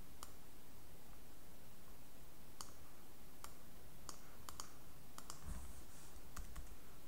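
Computer mouse clicking: about ten sharp, irregular clicks while a widget is dragged and resized on screen, with a couple of soft low thumps about five and a half seconds in.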